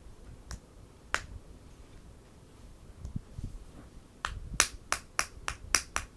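Sharp clicks or taps from handling a small container, such as a jar or pot of cream: two single clicks in the first second or so, then about seven in quick succession near the end.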